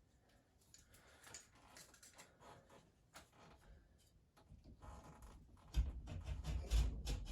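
Hands and tools working damp ceiling drywall: faint scratching and ticking, then low bumps and rustling from about six seconds in.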